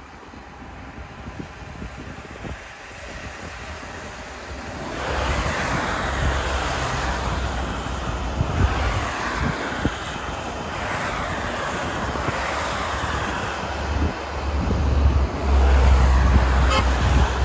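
Road traffic passing below on a wet, snowy road: tyre hiss from a van and cars swells and fades again and again, starting about five seconds in. Wind buffets the microphone in low rumbles, loudest near the end.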